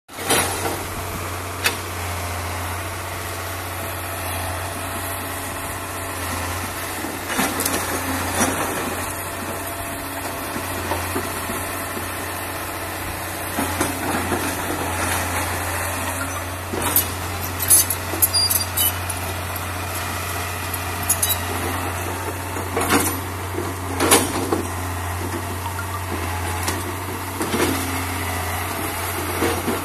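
Old Mitsubishi MS110-3 hydraulic excavator's diesel engine running steadily, with sharp clanks and knocks now and then, most of them in clusters around a quarter, half and three-quarters of the way through.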